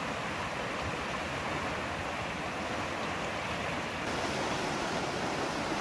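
Fast, wild river rushing over rocks and rapids: a steady noise of white water, slightly louder after about four seconds.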